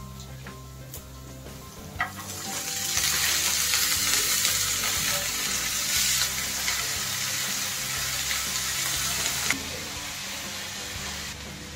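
Chopped saag (leafy greens) sizzling in hot oil in a frying pan as they are tipped in. The sizzle starts about two seconds in and cuts off suddenly near the end, over soft background music.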